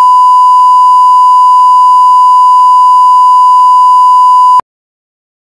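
Steady, loud electronic test tone (a single 1 kHz beep), the line-up tone at the head of a broadcast programme tape, with faint ticks about once a second; it cuts off suddenly near the end.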